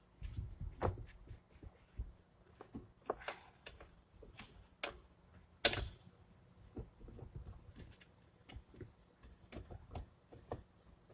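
Irregular small metal clicks and taps of hand tools and bolts while valve cover bolts on an ATV engine are started by hand, with one sharper click about six seconds in.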